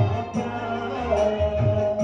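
Live band music through a PA: a keyboard and drum beat with a singer, a low beat landing about twice a second under held melody notes.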